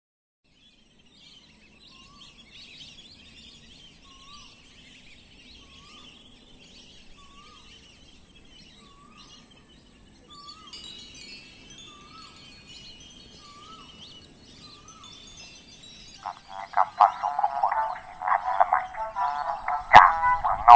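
Outdoor ambience: a short rising-and-falling call repeats about once a second over faint high chirping. About three-quarters of the way in, a much louder ringing of many bell-like tones takes over, and a sharp click comes near the end.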